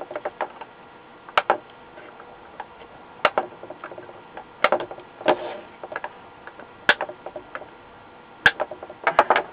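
Diagonal cutters snipping the excess capacitor leads off the back of a circuit board: sharp clicks, single or in quick pairs, every second or two, with a cluster near the end.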